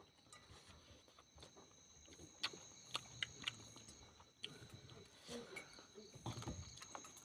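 Soft chewing and wet mouth clicks from someone eating, a few sharp smacks a little before the middle, over a steady high insect trill.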